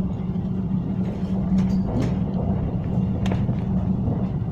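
Tram running along its tracks, heard from inside the car: a steady rumble with a low hum, and a few sharp clicks.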